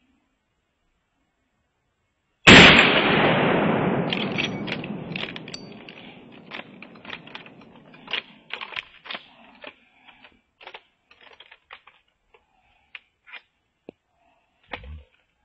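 A single hunting rifle shot about two and a half seconds in, loud and sharp, its report echoing and dying away over several seconds. Scattered light cracks and clicks follow, with a short low thump near the end.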